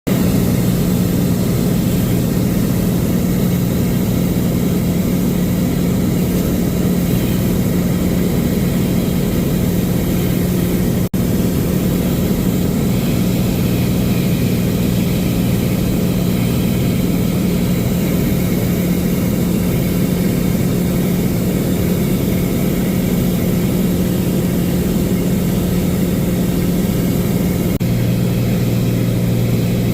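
Propeller aircraft engine droning steadily, with low tones and broad noise above them. The sound drops out briefly about eleven seconds in, and the lower tone grows stronger near the end.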